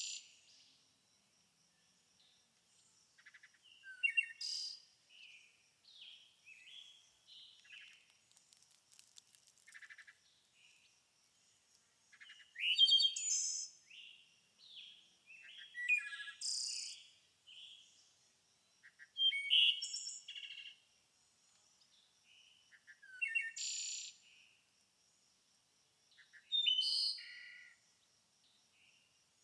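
Songbirds singing in a forest: short chirping phrases come every few seconds with quiet between them. A faint, steady high-pitched tone runs underneath.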